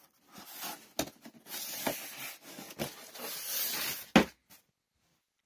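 Cardboard shipping box being opened by hand: rustling of cardboard and packing tape, broken by a few sharp clicks, and a loud thump a little after four seconds in.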